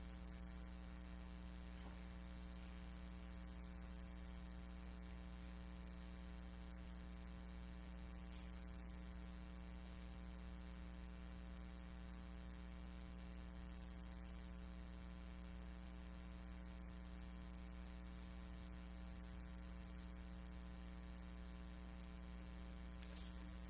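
Steady electrical mains hum with a faint hiss beneath it.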